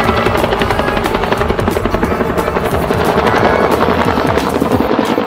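Helicopter rotor chopping steadily, a cartoon sound effect, over background music.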